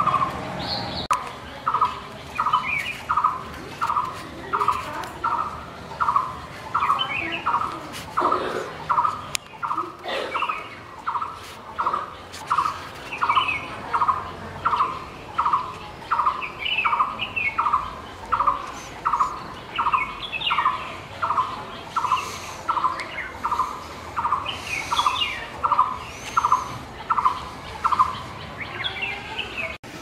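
Blue-throated barbet calling: one rolling note repeated steadily about three times every two seconds, stopping shortly before the end. Other small birds chirp now and then at a higher pitch behind it.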